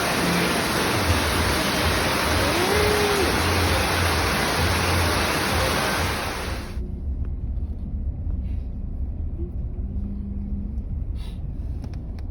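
Steady vehicle rumble under a loud, even hiss. The hiss cuts off suddenly about seven seconds in, leaving the low rumble and a few faint clicks near the end.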